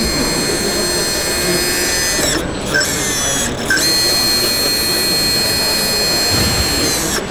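Whine of the small electric hydraulic pump on a radio-controlled 8x8 hooklift truck as the hook arm draws the roll-off container back onto the truck. The whine dips in pitch and cuts out briefly twice around the middle, then runs steadily again until it stops right at the end, over the murmur of a busy exhibition hall.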